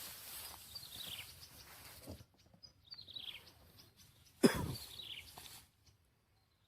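Bird calling in a series of short, quickly falling chirps, repeated about every two seconds. About four and a half seconds in there is a single sudden loud sound, much louder than the calls.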